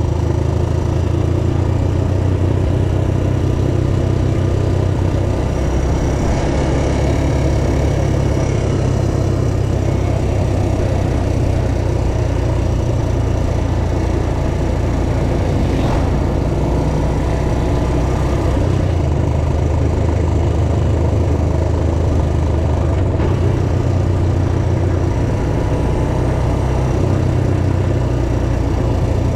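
ATV engine running steadily, with small shifts in pitch.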